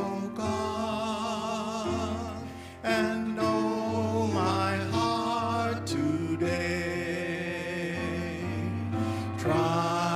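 Two men singing a slow hymn with vibrato, in phrases of a few seconds, accompanied by a grand piano playing sustained chords.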